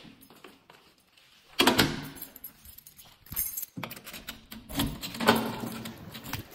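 Keys jangling on a keyring and a key working a door lock, with clicks and rattles of the lock and handle. The loudest clatter comes about a second and a half in.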